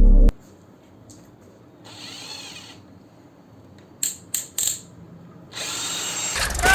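A hand drill being handled: a short whir about two seconds in, then three sharp mechanical clicks a little after four seconds.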